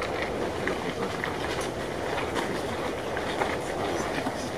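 Steady rushing outdoor noise with scattered light clicks and crunches.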